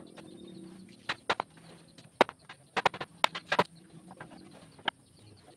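Wooden mallet knocking wooden boards into a chair backrest frame: about ten sharp, irregular knocks, several in quick pairs, the last one near the end.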